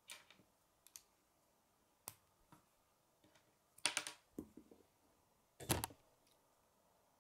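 Plastic K'nex pieces clicking and snapping together by hand: scattered light clicks, with two louder clusters of snaps about four and six seconds in.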